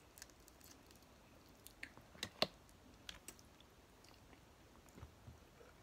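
Faint close-up eating sounds: a few sharp crackles and clicks of shrimp shell being peeled apart by fingers, the loudest a little over two seconds in, and chewing.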